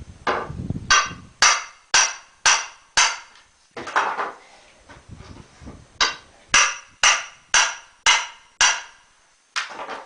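Hammer blows on a crowbar wedged into a wooden pallet to pry the rails off, sharp ringing strikes about two a second. There are two runs of blows with a pause of a couple of seconds between them.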